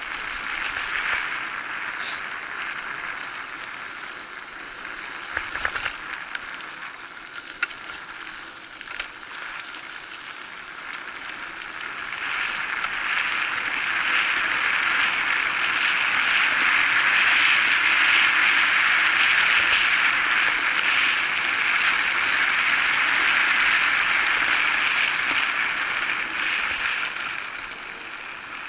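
Electric bike ridden along a dirt forest track: a steady rush of tyres and air, louder from about twelve seconds in until near the end, with a few knocks from bumps in the first ten seconds.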